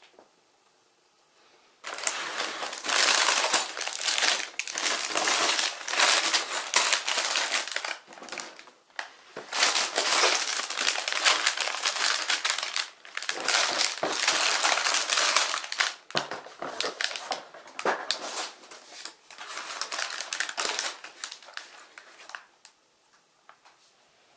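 Clear plastic bags full of small building bricks crinkling and rustling as they are handled and set down one after another. The crinkling comes in several long stretches with short pauses and stops shortly before the end.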